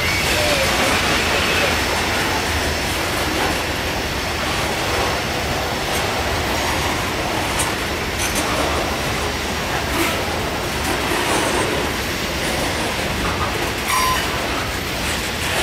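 Loaded coal hopper cars of a freight train rolling past: a steady rumble of steel wheels on rail with scattered sharp clicks and a brief faint wheel squeal near the end.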